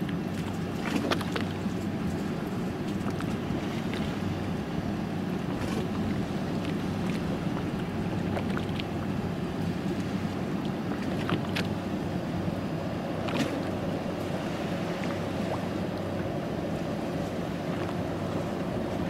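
Motorboat engine running steadily, with wind and water noise and a few short taps.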